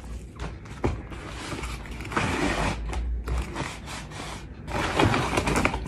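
Ring light stand being pulled out of its long cardboard box: cardboard scraping and rustling, with a few sharp clicks.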